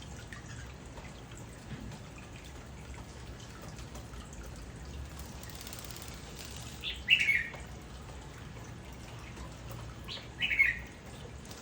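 Young hill myna giving two short, loud calls, about three and a half seconds apart, each opening with a brief higher note.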